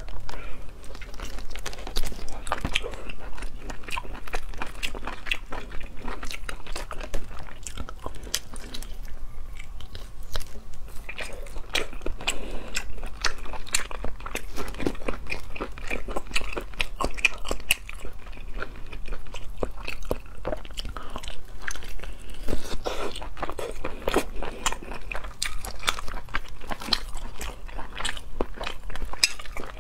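A person biting and chewing a whole cooked octopus, an irregular run of short clicks and smacks of mouth and flesh with no break.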